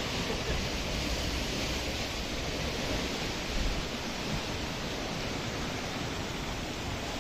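Sea surf washing against the rocks below, a steady rushing noise.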